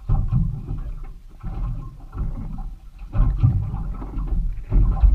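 Water slapping against the hull of a small boat on a choppy sea, coming in irregular low surges about four times.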